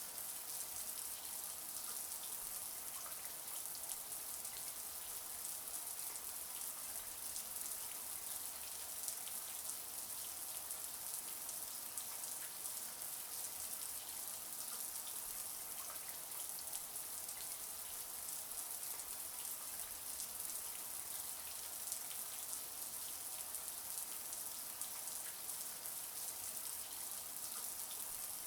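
Shower water spraying and pattering steadily, a continuous high hiss with fine droplet spatter.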